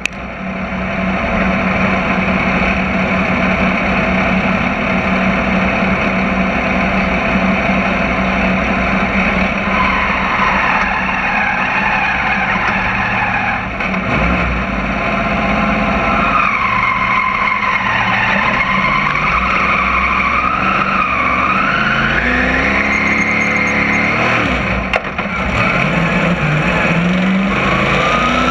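V8 engine of a dirt crate modified race car heard from inside the cockpit. It runs at a steady idle with a wavering higher tone over the middle, then revs up near the end as the car pulls onto the track.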